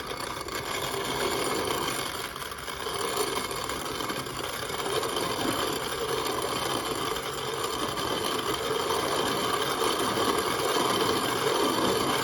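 Antique CS Bell No. 2 hand-cranked grain mill grinding milo (grain sorghum): the burrs crack and crunch the kernels in a steady, gritty grinding as the crank is turned, set for a coarse grind that only breaks the seed.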